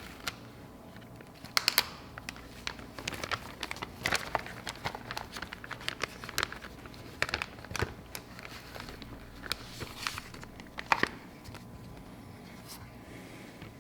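Paper and packaging being handled, crinkling and rustling in irregular bursts with sharp clicks and taps.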